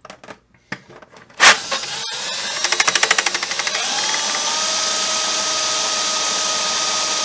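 Cordless Milwaukee drill driving a drain snake down a clogged laundry tub drain. A loud clack about a second and a half in is followed by a fast ticking, then the drill settles into a steady whine.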